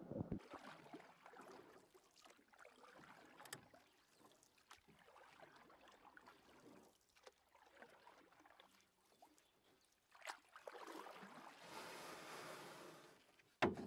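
Faint, muffled lake-water sounds picked up by a camera held underwater: a low wash of noise with scattered small clicks, then a louder rushing swell for a few seconds near the end, and a sharp knock just before the end.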